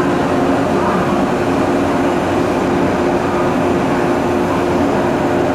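JR West 117-series electric train standing at the platform, its under-floor equipment giving a steady hum with a low tone over a constant noise.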